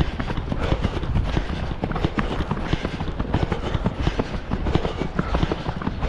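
Trail runners' footsteps thudding and crunching on a dirt path covered in dry leaves and pine litter, a continuous run of thuds and rustles picked up by a camera carried by a runner.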